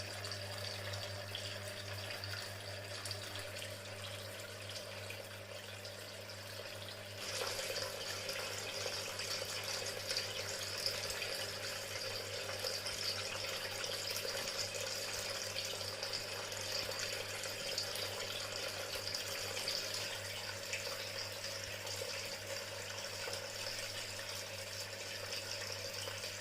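Water falling and trickling in a homemade waterfall fountain, a steady splashing with a constant low hum beneath it; it grows louder about seven seconds in.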